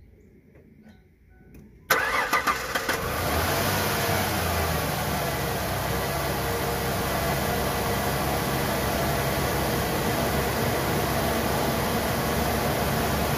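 Ford Ranger's 3.0 L V6 started: after a few faint clicks, the engine cranks and catches about two seconds in, running unevenly for a second before settling into a steady idle.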